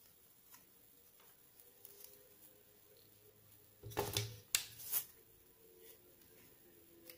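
A plastic microphone shock mount and the metal body of a condenser microphone being handled: faint clicks, then a short cluster of rattling, rustling and sharp knocks about four to five seconds in as the microphone is picked up and brought to the mount.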